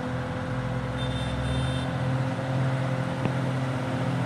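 Heavy diesel truck engines running with a steady low drone. Two short high-pitched beeps sound about a second in.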